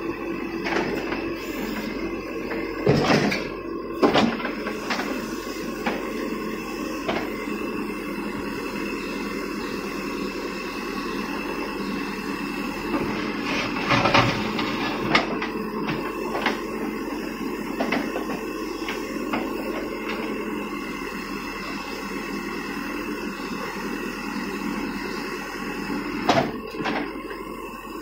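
Terex TLB 740S backhoe loader's diesel engine running steadily as the backhoe digs, with a few sharp clanks and knocks from the bucket and rubble: twice about three to four seconds in, twice around the middle, and once near the end.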